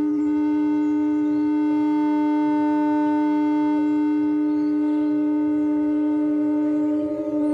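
Modular synthesizer holding a sustained drone on one pitch, with a stack of overtones above it; the tone wobbles briefly and dips near the end.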